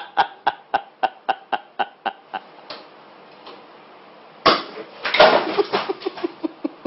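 A person laughing in quick pulses, about four a second, that fade away over the first couple of seconds. After a quiet stretch comes a sudden loud outburst about four and a half seconds in, followed by more pulsing laughter.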